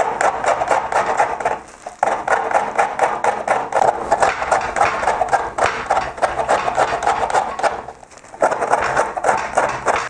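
Citrus peel being grated on the metal face of a box grater for zest: quick repeated rasping strokes, in three runs broken by two short pauses.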